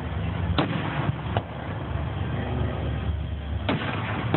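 Aerial firework shells bursting: three sharp bangs, about half a second in, about a second and a half in, and near the end, over a steady low rumble.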